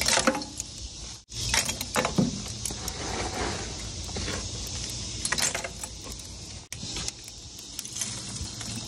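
Chunks of lump charcoal clinking and clattering as they are laid by hand onto hot coals in a steel smoker firebox, a scatter of sharp knocks over a steady hiss.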